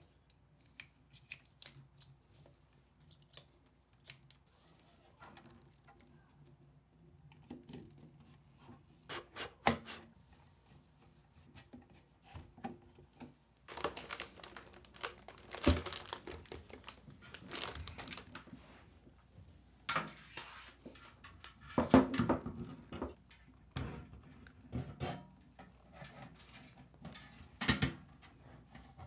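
Handling noises from fitting computer parts: plastic packaging crinkling and tearing, with scattered small clicks and knocks of parts being set in place, busier in the second half.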